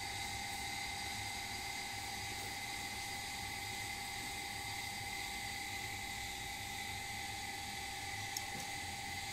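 Steady background hiss with a constant high whine, and a single short click about eight seconds in.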